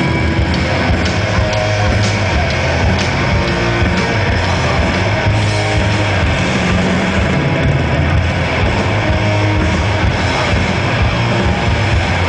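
Heavy metal band playing live, loud and steady: distorted electric guitar over bass and drums.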